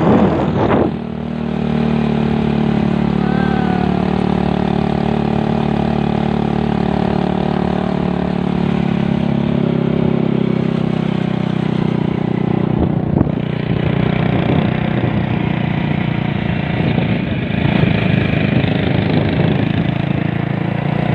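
An engine running at a steady speed, its pitch holding even throughout.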